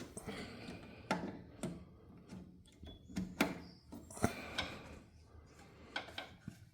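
Irregular clicks, taps and knocks of battery cables and terminal hardware being handled as the battery is connected, with about a dozen separate impacts spread unevenly, the loudest a little past four seconds in.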